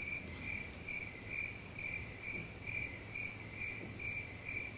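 A cricket chirping steadily, short high-pitched chirps about three times a second, over faint room noise.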